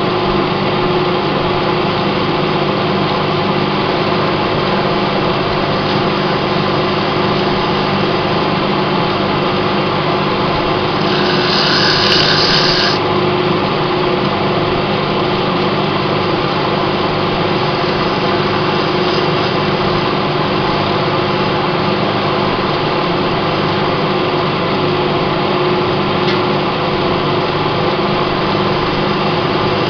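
Wood lathe running steadily while abrasive paper hisses against the spinning wooden vase as it is hand-sanded, with a brief louder hiss about eleven seconds in.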